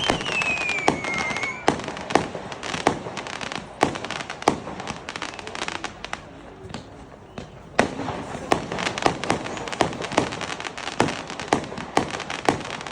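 Fireworks going off in a rapid series of sharp bangs, with a descending whistle in the first two seconds. The bangs ease off for a moment around the middle, then come thick and fast again.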